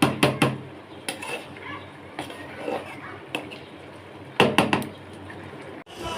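Metal cooking utensils clinking and clattering against pots and dishes in a series of sharp knocks, with a cluster of louder ones near the start and another about four and a half seconds in.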